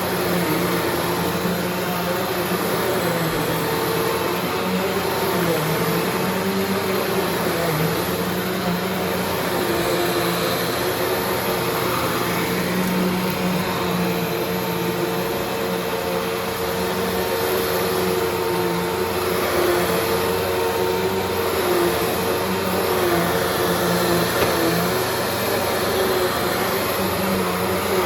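Eureka Alimta vacuum cleaner running continuously, its motor hum wavering slightly in pitch over a steady rush of air.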